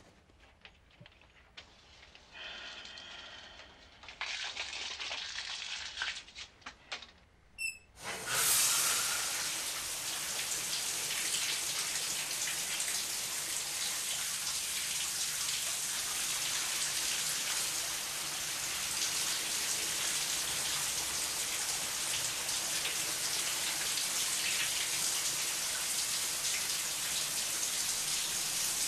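A shower turned on about eight seconds in: the spray starts abruptly and then runs as a steady hiss of falling water. Before it come a few brief, quieter handling sounds and light clicks.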